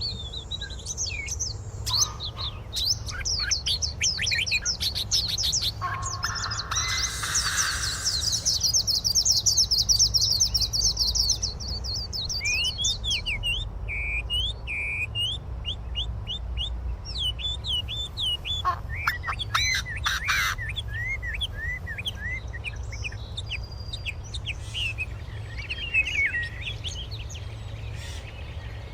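Wild birds chirping and singing: rapid high trills and quick sweeping call notes, several overlapping, over a steady low background rumble.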